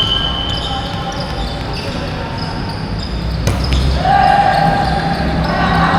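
Volleyball play in an echoing gym: a sharp hit of the ball about three and a half seconds in, with sneakers squeaking on the court and players' voices.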